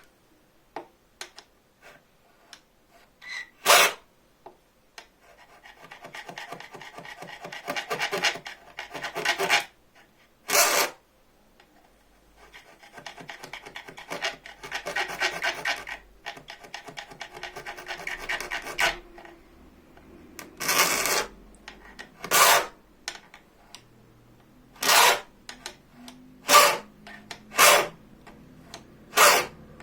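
A hand file rasping across a bow-saw blade to cut the first notches for its teeth. It makes single, separate strokes, with two longer runs of quick, lighter strokes in the middle.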